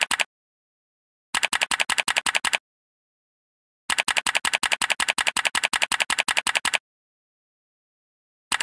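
Typing sound effect: rapid, even key clicks at about ten a second. They come in bursts, a short one at the start, one of about a second, then a longer one of about three seconds, with dead silence between.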